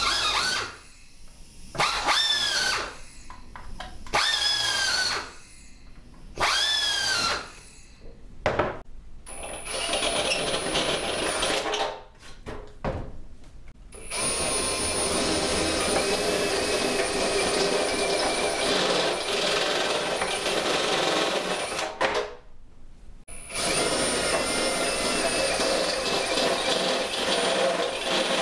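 Power drills boring holes in a thin aluminium panel: first four short bursts of about a second each, the pitch rising as the drill spins up and falling as it stops; then a cordless drill with a step drill bit cutting in three long, steady runs with a high whine.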